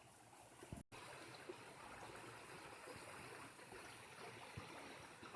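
Faint, steady rush of a spring-fed mountain stream flowing, broken by a brief dropout about a second in.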